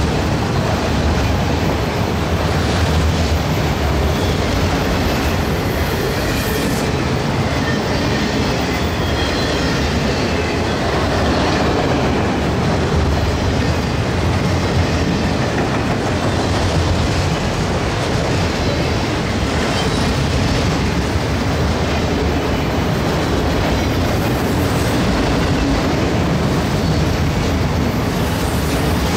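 Freight train rolling past: a steady rumble of steel wheels on rail with the clickety-clack of wheels passing over rail joints.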